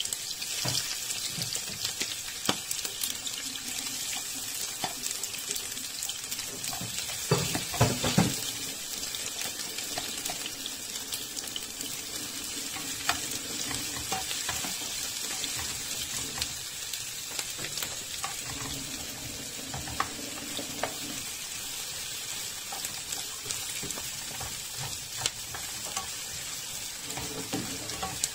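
Chopped onions and garlic sizzling in hot oil in a nonstick frying pan, a steady hiss. A spatula stirs them, scraping and tapping against the pan now and then, loudest about a quarter of the way in.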